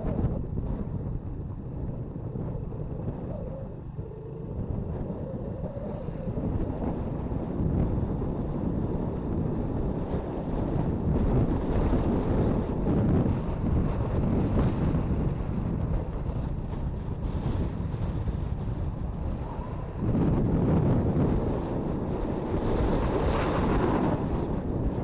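Wind rushing and buffeting over the microphone of a moving motorcycle, with the engine running underneath. The rush swells and eases unevenly, loudest about twenty seconds in.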